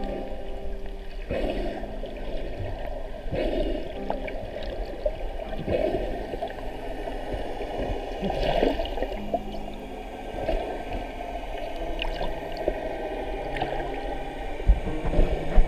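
Muffled underwater water noise from a camera held below the surface: sloshing and gurgling, swelling about every two seconds.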